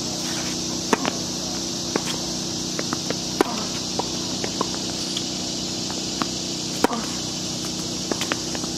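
Tennis rally on a hard court: a string of sharp pops from rackets striking the ball and the ball bouncing, one every second or so. The loudest pops come about three seconds apart.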